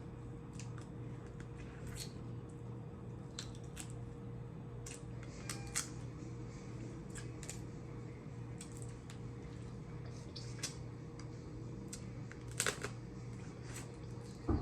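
Quiet eating sounds from a seafood boil: scattered small clicks, smacks and wet squishes of chewing and handling the food, a few louder near the middle and the end, over a steady low electrical hum.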